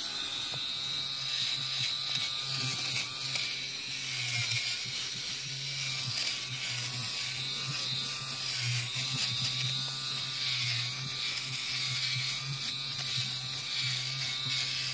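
Battery-powered fabric shaver (lint remover) running with a steady motor buzz, its blades shaving pills off cloth seat upholstery as it is pressed and moved over the fabric. The buzz wavers slightly as it works.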